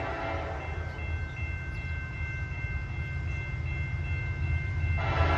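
Railroad grade-crossing bell ringing steadily in the distance, a high repeating ding about three times a second, over a low rumble. About five seconds in, a louder rushing noise rises as the train draws near.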